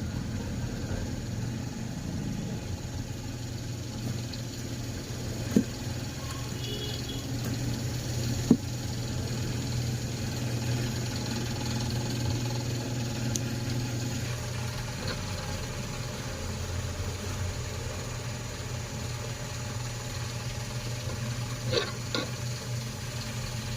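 A steady low mechanical hum, with a sharp click about five and a half seconds in, another about eight and a half seconds in, and a couple of small clicks near the end.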